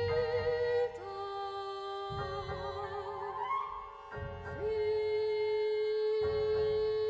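Contemporary classical chamber ensemble music: long held notes near one pitch, some wavering with vibrato, sliding slowly into place, over a low rumbling layer that drops out and returns.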